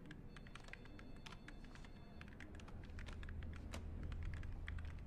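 Computer keyboard typing: quick, irregular key clicks from several keyboards, faint, over a low steady hum of room tone.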